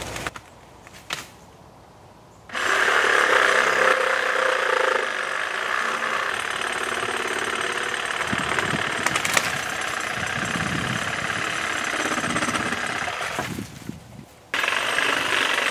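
DeWalt 20 V cordless reciprocating saw cutting through a fallen tree branch, the blade chattering back and forth in a steady, loud run. It starts about two and a half seconds in, stops briefly near the end, and starts again.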